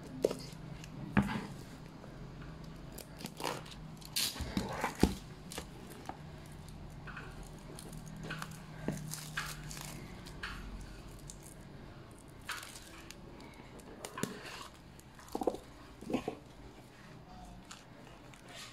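Clear plastic shrink-wrap being slit with a utility knife, then crinkled and torn off a cardboard box, with irregular sharp clicks and rustles of handling.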